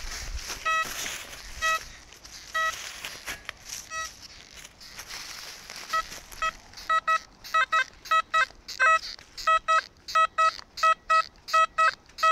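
Metal detector beeping on a buried metal target, a good signal reading about 78 to 80. Short beeps of one steady pitch come a few at a time at first, then from about halfway they repeat quickly, three to four a second.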